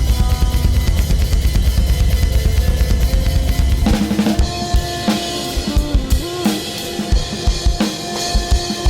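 Drum kit played in a dense, fast pattern with a heavy low end; about four seconds in it thins out to spaced kick-drum and cymbal hits under held pitched notes.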